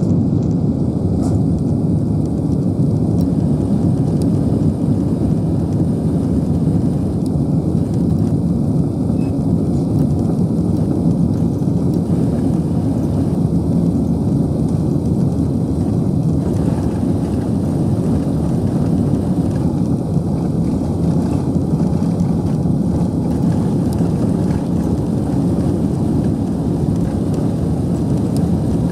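Airbus A380 cabin noise heard from inside the passenger cabin: a loud, steady, low rumble of the jet's engines and rolling as it moves along the ground at the airport.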